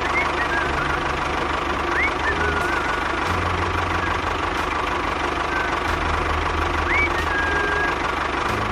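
An engine running steadily at idle, with a few short high chirps about two and seven seconds in.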